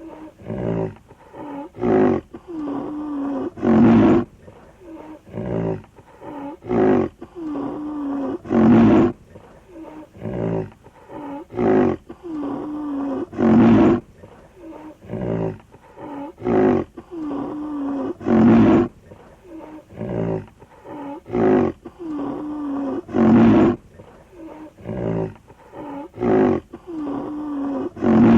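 Tiger roaring in a long series of loud roars and shorter grunting calls, the biggest roar coming about every five seconds in a steady repeating cycle.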